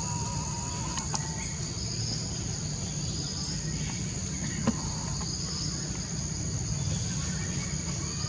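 Steady, high-pitched drone of an insect chorus over a low background rumble, with a sharp click about a second in and another just past the middle.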